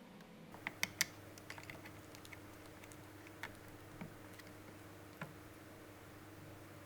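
Light clicks and taps of small hard parts being handled: three quick ones about a second in, then scattered single ones, over a faint steady hum.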